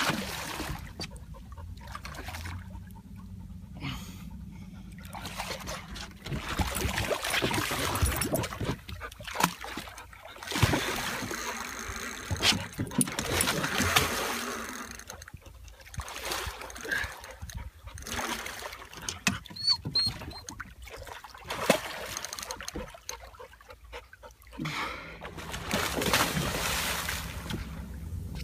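Water splashing and sloshing around a small boat in irregular surges, a few seconds each. A faint low hum runs under the first few seconds.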